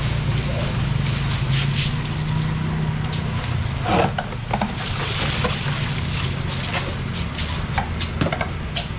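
Steady low machine hum under a constant hiss, with plastic bags rustling and a few short knocks from styrofoam boxes being handled, the loudest about four seconds in.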